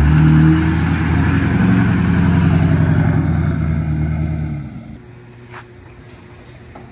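Straight-piped LML Duramax 6.6 L turbo-diesel V8 in a GMC 2500 pickup running loud. Its pitch steps up about a second and a half in, and the sound dies away near five seconds in.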